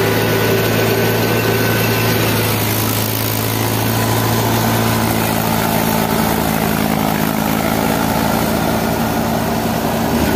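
Mahindra 575 DI XP Plus tractor's four-cylinder diesel engine running steadily under load while driving a wheat thresher, with the thresher's machinery running along with it. The engine's low note shifts about halfway through.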